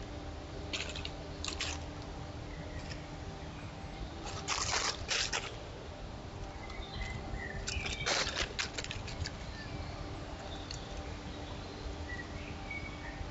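A few short rustling crackles, the loudest about four and a half and eight seconds in, over a steady low hiss and hum, with a couple of faint high chirps.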